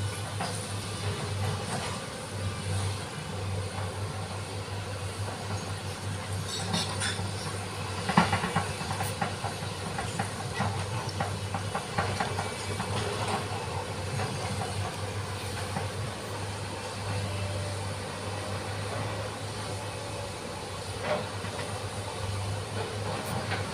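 SANY hydraulic excavator's diesel engine running at a steady hum with a hiss, with scattered metallic clanks and knocks, the sharpest about eight seconds in.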